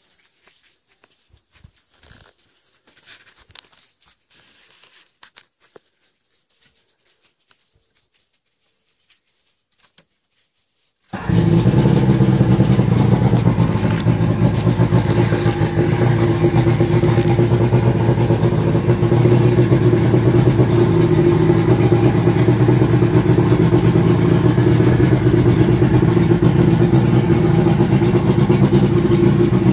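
Johnson 85 hp outboard, a two-stroke V4, catching abruptly about a third of the way in and then running steadily. Before it starts there are only faint clicks and handling noises.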